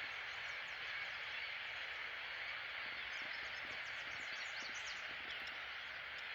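A flock of gulls calling, a steady din with a flurry of short, high calls in the middle.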